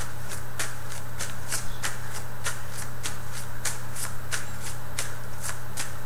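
A deck of reading cards being shuffled by hand: a steady run of short card flicks, about three a second, over a low constant hum.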